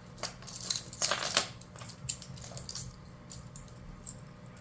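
Small hard toy pieces being handled: a run of clicks and clacks, with a quick clatter about a second in.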